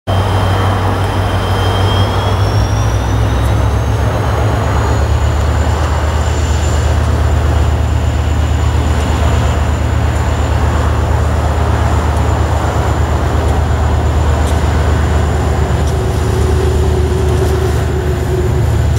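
Train running, a steady loud rumble and low hum with a high whine that rises in pitch over the first few seconds and then holds steady.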